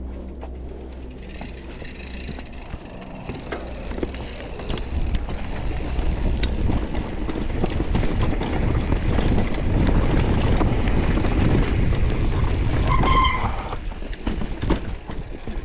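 Mountain bike rolling down a rough, rocky trail: tyre noise, the bike rattling over stones and wind buffeting the microphone, getting louder as speed builds. A brief high squeal about thirteen seconds in.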